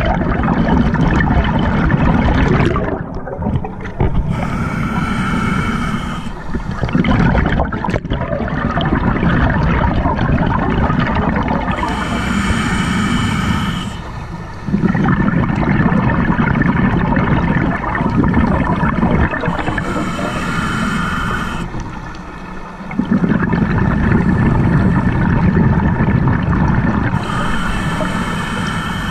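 Scuba regulator breathing underwater: four short hissing inhales with a whistling tone, about every eight seconds, between long rumbling bursts of exhaled bubbles.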